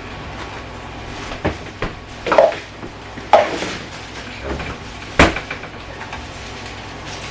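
Kitchen clean-up: a string of sharp knocks and clinks as things are picked up, moved and set down on hard surfaces, two of them with a short ringing tone and the loudest about five seconds in.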